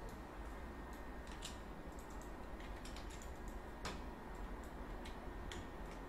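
Scattered computer keyboard and mouse clicks at an irregular pace, the sharpest about four seconds in, over a faint steady hiss and low hum.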